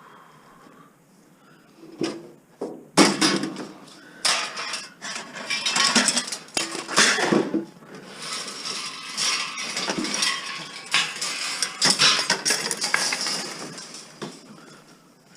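Tangled scrap metal clanking and rattling as it is pulled and shaken to get it out of a bin, a dense run of metal knocks starting about two seconds in and easing off near the end.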